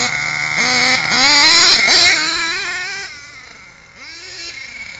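Nitro engine of an HPI Savage RC monster truck (LRP Z.28R Spec 3 .28 with a three-chamber tuned pipe) revving in rising, high-pitched bursts as the truck pulls away across grass. The sound fades with distance after about three seconds, with one more rev near the end, further off.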